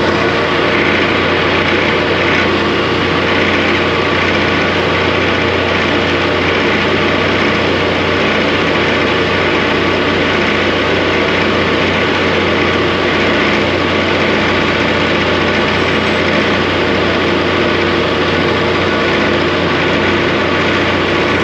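John Deere 650J dozer's diesel engine running steadily while it drives the 4000S winch, wire rope spooling onto the drum under tension.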